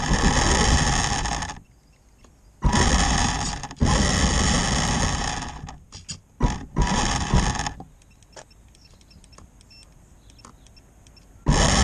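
Tamiya Grasshopper RC buggy's electric motor and gear drive whining under throttle, heard from a camera riding on the car, with the tyres rolling over rough pavement. The power comes on in bursts, several short ones in the middle; then it cuts out for about four seconds, leaving only faint ticks, and comes back strongly near the end.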